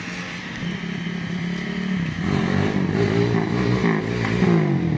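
Bored-and-stroked Honda GL100 single-cylinder four-stroke motorcycle approaching on test ride. Its engine pitch rises and falls repeatedly from about two seconds in as the throttle is worked, and it grows louder as it nears.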